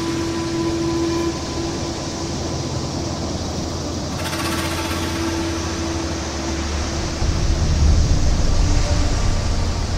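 Surf breaking and washing over a rocky sand beach, a steady rushing noise, with a faint steady hum of a few tones over it. A deeper low rumble swells up about seven seconds in.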